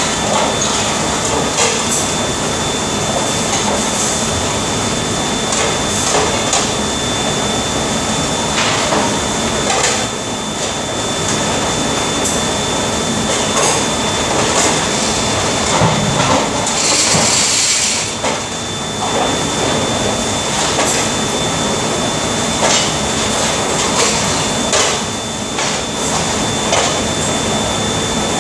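Dishes and plastic bowls clattering and knocking in a stainless-steel sink during hand washing, over a steady wash of noise and a constant faint high whine. About seventeen seconds in there is a louder hiss for about a second.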